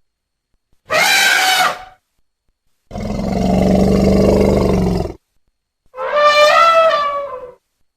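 Three elephant calls separated by silence: a short, high, brassy trumpet about a second in, a longer low roar in the middle, and another trumpet near the end that falls slightly in pitch.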